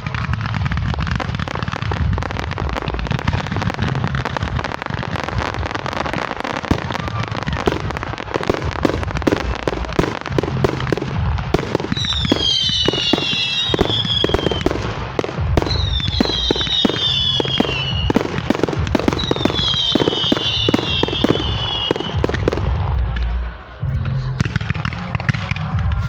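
Fireworks going off in a dense stream of crackling pops and bangs. From about halfway in, four falling whistles sound a few seconds apart.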